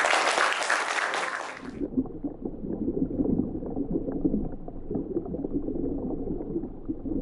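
Audience applause that cuts off abruptly about two seconds in, followed by a muffled, dense bubbling and gurgling of water.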